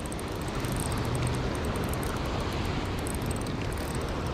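Shallow surf washing over sand: a steady rushing noise that grows over the first second and then holds.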